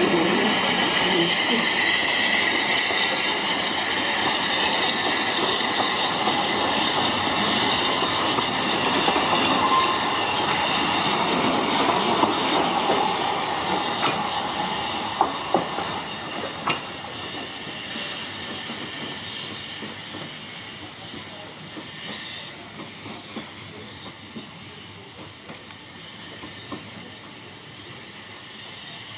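Narrow-gauge steam train passing close by: the Hunslet saddle-tank locomotive Linda and its wooden carriages, with wheels running on the rails. The sound fades steadily from about halfway through as the train draws away. A few sharp clicks come around the middle.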